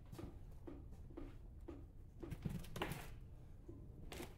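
Faint soft taps and rustling of hands working loose organic potting mix in a plastic tub, repeating roughly twice a second.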